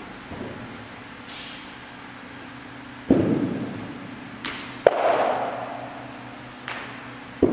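Baji quan practitioner's foot stamps and hand strikes during the Xiao Jia form: about five sharp impacts, the first about three seconds in and two coming close together around the middle, each ringing out in a large hall.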